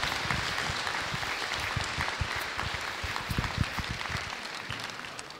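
Audience applauding, a crowd of hand claps that dies away toward the end.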